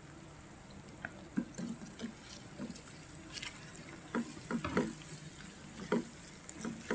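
Wooden spatula stirring sliced shallots, garlic and spices sautéing in a nonstick pan: a faint steady sizzle with scattered light knocks and scrapes of the spatula against the pan.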